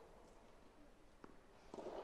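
Near silence: faint venue ambience with two soft clicks, about a second and a quarter in and again near the end.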